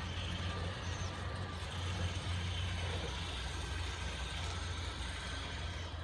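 Steady low rumble of outdoor background noise, with one short, faint high chirp about a second in.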